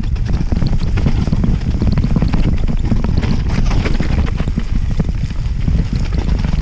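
Mountain bike descending a rough dirt trail at speed: steady wind rumble on the camera microphone, with constant rattling and clicking from the bike as it hammers over roots and bumps.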